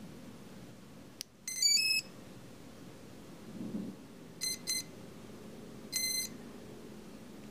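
Multirotor electronics powering up: a click about a second in, then a quick run of stepped electronic tones. About three seconds later come two short beeps, then one longer beep. These are the startup signals of the speed controllers and the KK2.0 flight control board as power comes on.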